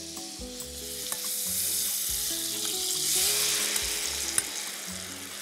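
Butter sizzling in a hot frying pan. The sizzle grows louder partway through as balsamic-and-sugar-marinated strawberries are tipped in to fry.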